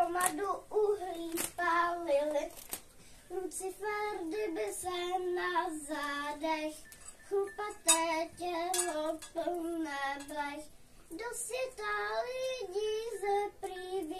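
A child singing a song alone, without accompaniment, in held notes and short phrases. A couple of sharp clicks sound near the start.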